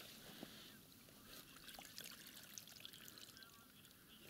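Faint trickle and dribble of water from a ladle being worked in a hole in the ice, scooping up bottom mud, with a few small ticks.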